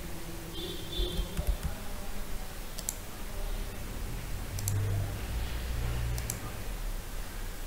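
Computer mouse clicking a few times, several clicks in quick pairs, over a low steady background hum.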